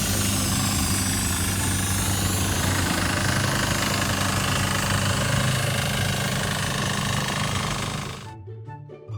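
Loud, dense machine clatter with a steady low hum, of the kind made by a rapid automatic production machine, under background music; it cuts off about eight seconds in, leaving quieter music.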